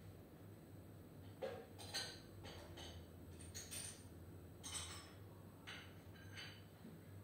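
Quiet room tone with a steady low hum, broken by a string of small, sharp clicks and clinks, about a dozen spread over five seconds, starting a little over a second in.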